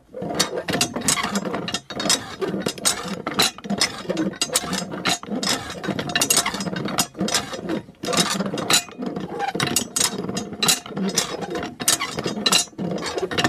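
Miniature hand water pump worked by its lever, giving a dense, irregular run of mechanical clicks and rattles, several a second.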